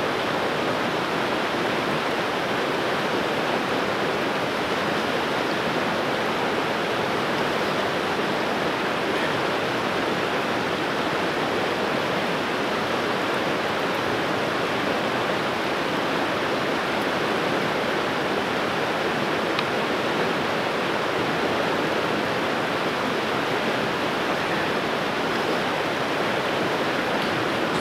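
Creek water rushing, a steady even noise with no change.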